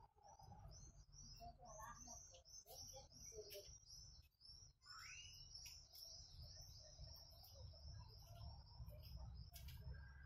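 Birds chirping in the evening, faint: a steady stream of short, high chirps, with one rising call about halfway through. A low rumble runs underneath.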